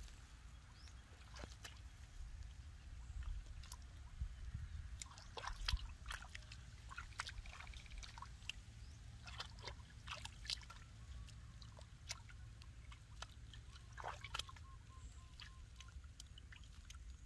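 Bare feet and hands sloshing and splashing in shallow muddy water, with faint, scattered small splashes.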